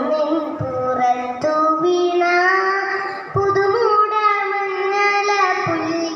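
A young girl singing a Malayalam poem solo, in long held notes that glide from pitch to pitch, with short breaths between phrases.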